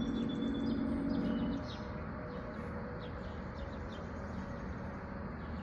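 Faint bird chirps over a steady background hiss. A low hum stops about a second and a half in.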